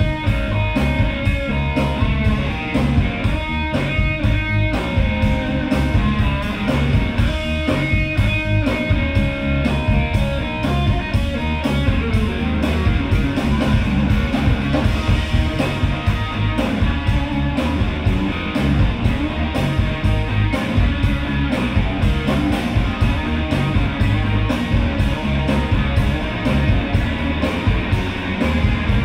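Live blues-rock band playing: electric guitar, bass guitar and drum kit over a steady beat, at full volume.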